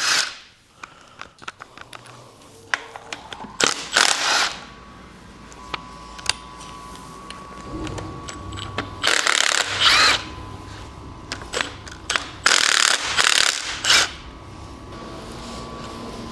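Ratchet wrench turning out bolts on an engine being torn down, in four short bursts with scattered metal clinks between.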